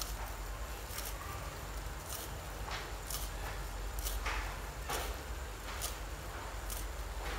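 Beef simmering in sauce in a steel wok over a gas flame: the liquid bubbles, with irregular short pops and crackles every half second or so over a steady low hum.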